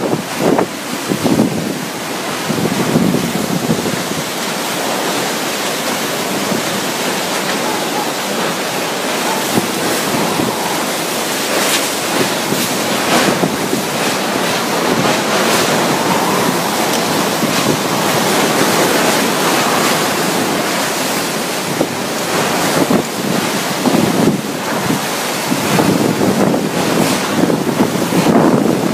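Typhoon-force wind and driving rain, a loud continuous rush that surges in gusts, with gusts buffeting the microphone.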